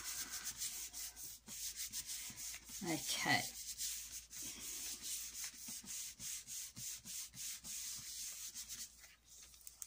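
Hands rubbing briskly over the back of a sheet of card laid on a gel printing plate, a quick run of dry swishing strokes, burnishing the card to lift the print. The rubbing stops near the end.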